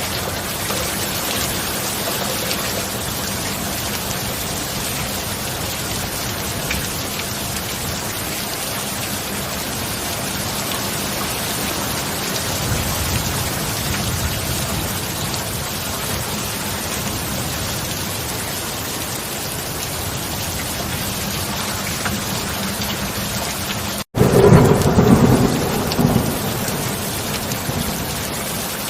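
Steady heavy rain, with a faint low thunder rumble about halfway. Near the end the sound cuts out for an instant and a loud thunderclap follows, rumbling for about two seconds before the rain alone returns.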